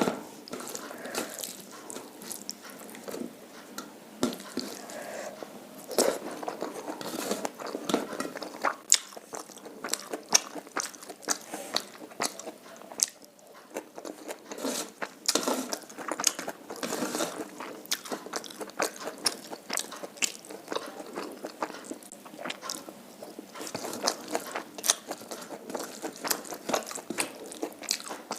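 A person chewing and biting food, with frequent irregular sharp crunches and clicks.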